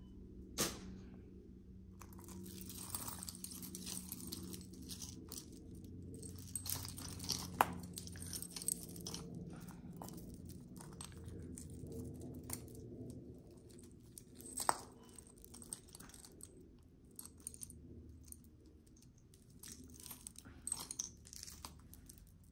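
Hands handling costume jewelry: beaded necklaces and chains rustling and clicking against each other, with a few sharper clicks scattered through, over a steady low hum.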